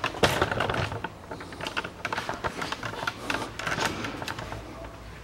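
Irregular metallic clicks and clatter of hand tools being worked on the car's front suspension.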